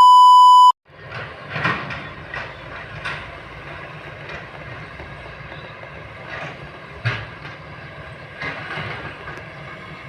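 A short, loud electronic beep, then a Kobelco long-boom excavator's diesel engine running steadily, with irregular knocks and clanks from the working machine.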